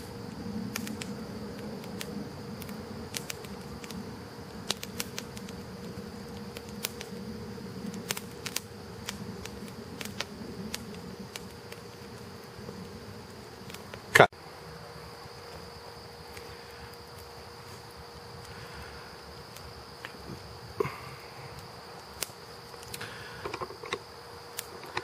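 Steady high chirring of night insects, with scattered small crackles from a wood campfire and one sharp knock about 14 seconds in.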